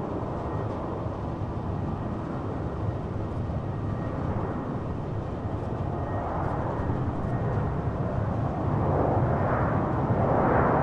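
Jet engines of an Airbus A350-900 airliner, Rolls-Royce Trent XWB turbofans, running with a steady low rumble and a thin high whine over it, swelling louder near the end.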